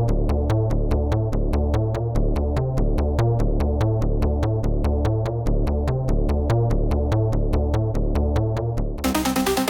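Electronic background music with a steady drum-machine beat and synthesizer bass; about nine seconds in it changes to a brighter, fuller section.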